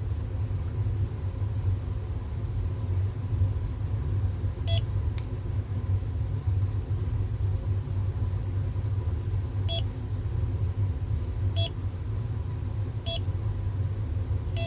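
Welock SECBN51 fingerprint smart lock cylinder beeping four times at irregular intervals as a fingerprint is scanned and registered for a new admin, each beep short and high. A steady low hum runs underneath and is louder than the beeps.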